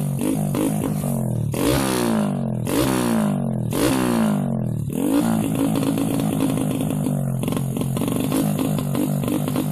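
Honda Grand's four-stroke single-cylinder motorcycle engine idling, blipped three times in quick succession about one and a half to four seconds in, then settling back to a steady idle, as it is tuned.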